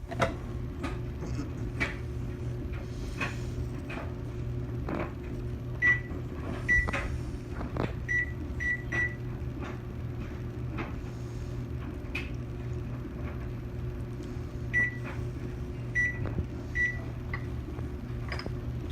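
Microwave oven running with a steady low hum. Scattered sharp clicks and a few brief high-pitched tones come through it over the middle part.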